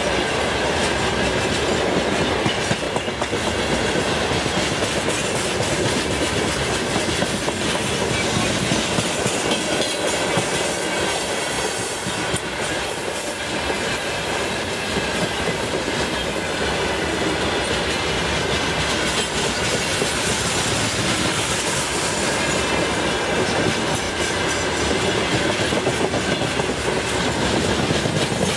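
Freight wagons rolling past on the rails: a steady rumble of steel wheels on track with the clickety-clack of wheelsets over rail joints.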